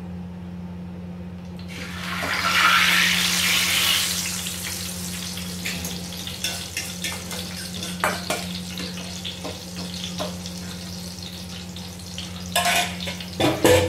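Hot oil in a frying pan sizzling as a beaten egg-and-eggplant mixture is poured in: the sizzle bursts up about two seconds in, then settles into a steady crackling hiss with scattered pops. A few short knocks near the end.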